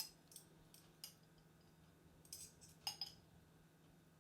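A few faint, light clinks and taps of kitchen utensils and containers while ingredients go into a food processor, over a faint steady low hum.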